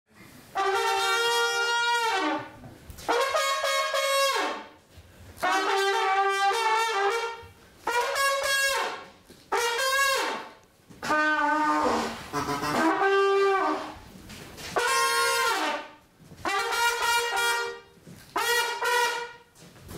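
Trumpet playing a slow tune of held notes in about ten short phrases, each a second or two long, with brief breaks between them.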